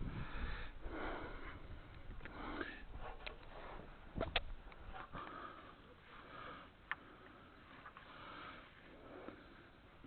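A person breathing and sniffing close to the microphone while working, in soft repeated breaths. A sharp click comes about four seconds in and a smaller one near seven seconds.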